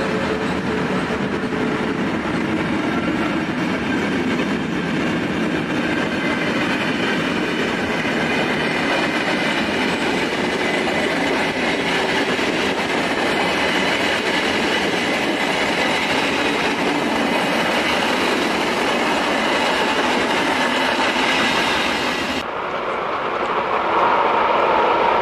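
SBB Re 460 electric locomotive and its train of passenger coaches rolling past on the rails: a steady rumble of wheels on track with some clickety-clack. Near the end the sound cuts abruptly to a different, louder rail sound from another train.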